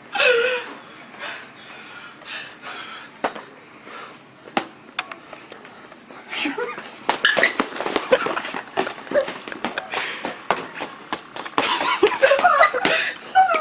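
Wheezing, breathless laughter and muffled voices, with scattered clicks and knocks. The laughing gets denser and louder in the second half.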